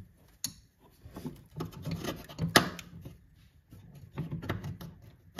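A spanner working a tight nut on the wiper motor mounting under a car's dashboard: irregular metallic clicks and scraping as the spanner is fitted and turned, with hands rubbing against the old wiring loom. The sharpest click comes about two and a half seconds in.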